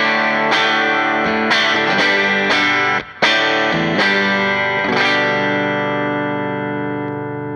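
Electric guitar played through an AmS Hurricane 40 tube amp head with four 6V6 power tubes. Chords are struck about once a second, with a brief gap about three seconds in, and the last chord, about five seconds in, is left to ring out and slowly fade.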